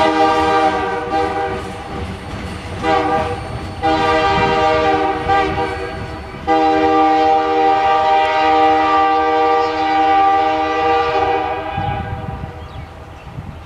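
A diesel freight locomotive's air horn sounds a chord of several tones in a series of blasts: a long one, a short one, another, then one long blast of about five seconds. Freight cars rumble along the rails underneath as the train pulls away.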